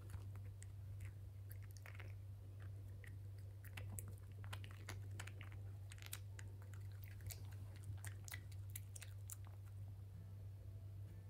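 Maltese puppy chewing a crunchy biscuit treat: a run of small crisp crunches and mouth clicks, coming thicker in the second half. A steady low hum runs underneath.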